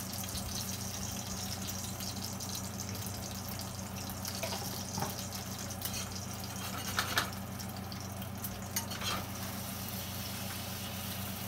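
Steady sizzle of yeast dough frying with apple jam in a black steel frying pan, with a low hum underneath. A few light clinks of a metal fork against the pan come in the second half, the loudest about seven seconds in.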